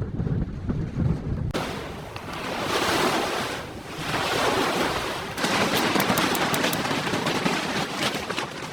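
Blizzard wind blowing in gusts: a low rumble of wind buffeting the microphone at first, then a rushing hiss that swells and eases.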